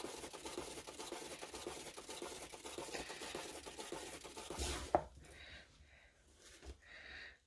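A painting turntable spinning a tile, giving a steady scratchy rattle that stops with a click about five seconds in.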